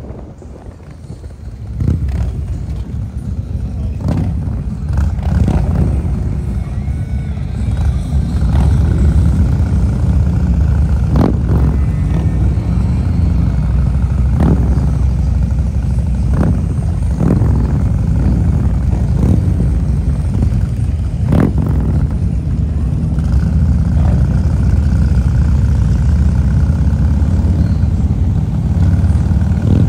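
A pack of Harley-Davidson V-twin motorcycles, the rider's own 2003 Road King among them, rumbling along at low speed. The rumble gets louder about two seconds in, with a few short, sharp bursts on top.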